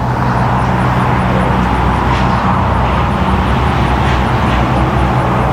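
Steady road noise from a road bike being ridden along a street, with car traffic.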